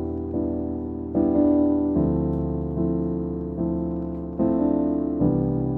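Background music: piano chords, each struck and left to fade, a new chord about every second.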